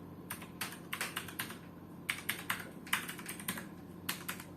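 Clicky blue switches of a Logitech G Pro X mechanical keyboard being pressed one key at a time: a string of sharp, unevenly spaced clicks, a few a second, as the keys are checked one by one.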